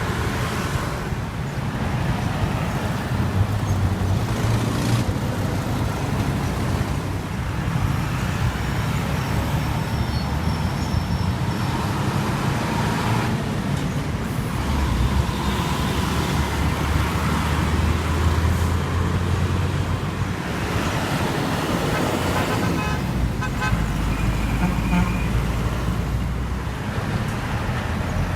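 Heavy truck engines running amid street traffic, their low rumble steady but shifting in pitch several times.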